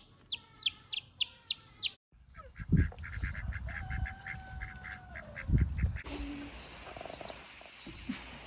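Baby chicks peeping in quick, high repeated chirps, then, after a cut, poultry calling in a fast run of short notes with a held tone among them, and some low thumps.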